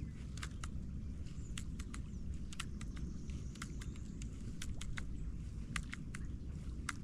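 Drizzle drops ticking irregularly on the camera and kayak, a few sharp ticks a second, over a steady low rumble.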